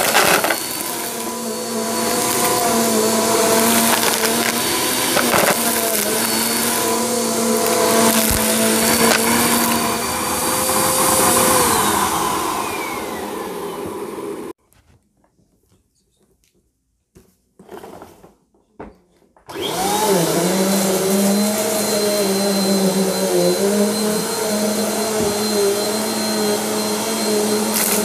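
Bagless upright vacuum cleaner running on carpet, with a few sharp clicks as hard debris is sucked up. About halfway through it is switched off and its motor winds down to near silence, with a few small handling noises. It then starts up again with a rising whine and runs steadily.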